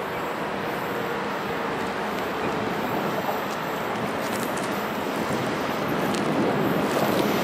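Approaching train, a locomotive hauling car-transporter wagons: a steady rumble that grows gradually louder as it nears.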